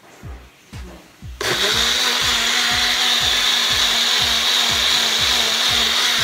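Small personal blender switched on about a second and a half in and running steadily, blending mango pieces, sugar and milk into a milkshake. Background music with a steady beat plays throughout.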